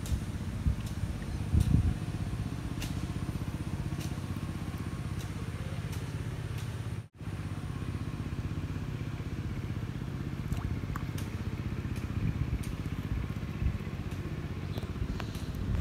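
A motor engine running steadily with an even low pulse, cutting out for a moment about seven seconds in, with a few light ticks over it.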